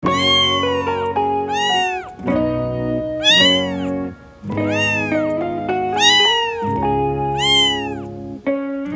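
Kitten meowing repeatedly, about six high meows that rise and fall in pitch, over background music.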